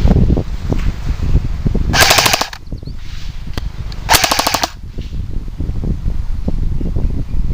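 Two short full-auto bursts from an airsoft electric gun, a rapid string of plastic-BB shots each lasting about half a second, roughly two seconds apart. A low rumble on the microphone runs underneath.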